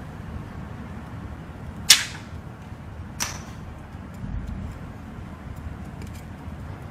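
Two sharp clicks of hard parts being set down and fitted on the aluminium plate of a vacuum laminating machine's chamber, a little over a second apart, the first the louder, over a steady low hum.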